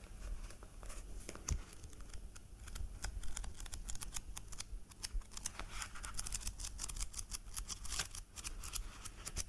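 Paperback book handled and its pages turned close to the microphone: a quick run of crisp paper clicks and rustles, thickest from a few seconds in.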